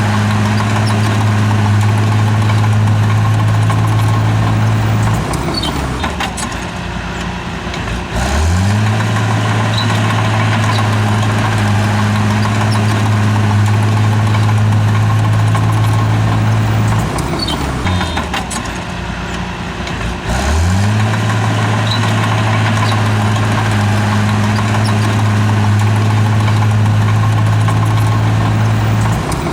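Bulldozer's diesel engine held at high revs for long stretches. It drops off three times, and the first two times it revs back up to the same steady pitch a few seconds later, in a working cycle of pushes.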